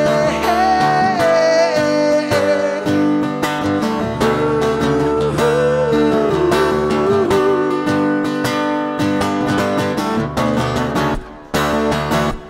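Live song with strummed acoustic guitar and a held, wavering melody line over it. The music briefly drops away near the end, then the strumming comes back in.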